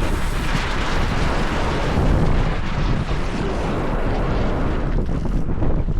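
Wind buffeting the microphone over the rush and hiss of water along the hull of a sailboat under way.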